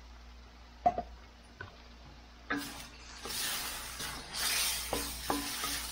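Vegetables sizzling as they are stir-fried in a stainless steel wok, a wooden spatula stirring and scraping them in strokes from about halfway through. Two sharp knocks come about a second in.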